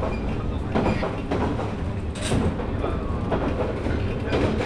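Running sound inside a 183 series electric express motor car (MoHa 182) at speed: a steady rumble of wheels on rail, with the wheels knocking over rail joints at irregular intervals.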